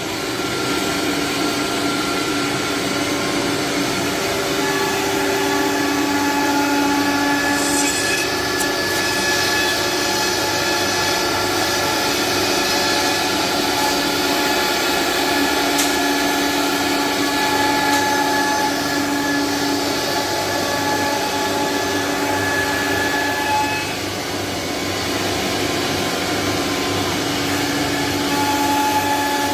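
CNC router running and cutting wood board: a steady machine whine with several held tones that swell and fade every few seconds over a constant cutting hiss.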